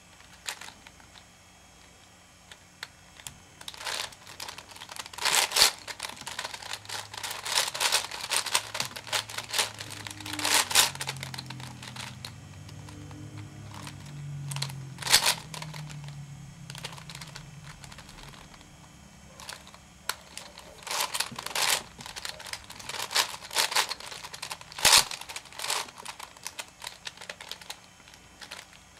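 Plastic clicking and clacking of a V-Cube 7 (7x7x7 puzzle cube) being turned by hand, in irregular runs of quick layer turns with short pauses between.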